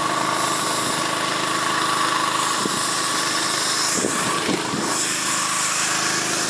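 Small engine of a Honda motor pump running steadily at a constant speed while it feeds a spray lance, with the hiss of the spray over it. A brief rustle of cloth around four seconds in.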